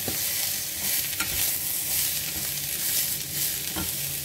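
Shredded carrot, cabbage and onion sizzling in olive oil in a stainless steel pan, stirred with wooden chopsticks that click against the pan a few times.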